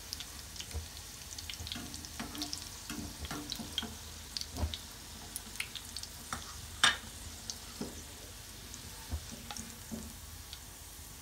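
Shami kababs shallow-frying in hot oil: a steady sizzle dotted with small pops and crackles of spattering oil, one sharper pop about seven seconds in.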